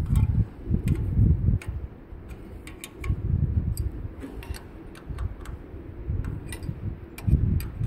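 Scattered light metallic clicks and taps of an open-end wrench on the injector fuel-line nuts of a Detroit Diesel 4-53 as the lines are refitted, over a low rumble that comes and goes.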